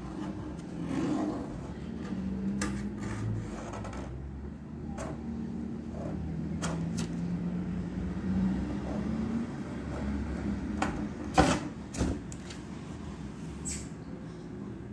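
A cat moving about inside a cardboard box, its paws and claws making short taps and scrapes on the cardboard, the loudest a pair about eleven and twelve seconds in, over a low steady hum.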